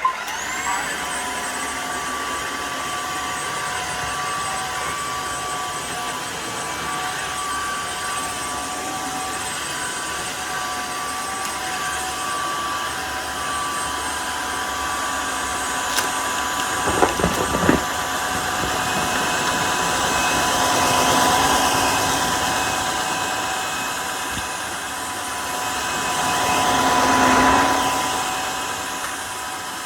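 Tineco Floor ONE S5 cordless wet-dry vacuum-mop switching on with a quick rising whine, then running steadily with a high motor whine over airflow noise. A few knocks come about halfway, and the running noise swells louder twice in the second half.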